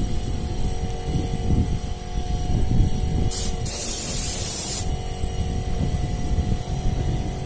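A compressed-air spray gun hissing in two blasts about three seconds in: a very short one, then one lasting about a second. A steady low hum and rumble runs underneath.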